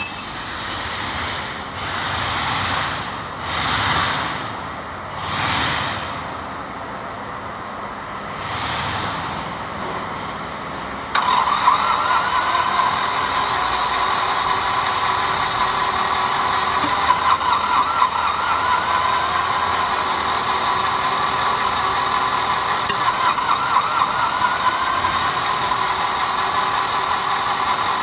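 Kubota D905 three-cylinder diesel, which is hard to start, turning over in several short surges, then catching about eleven seconds in and running steadily.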